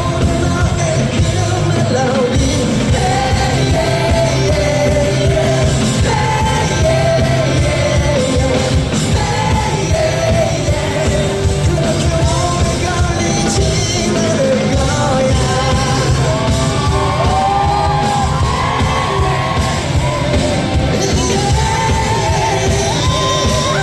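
Live pop-rock band performance with a steady beat, and a male lead singer belting over it.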